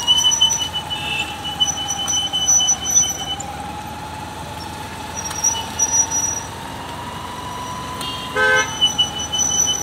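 Street traffic with a short vehicle horn toot about eight and a half seconds in, over a steady high whine.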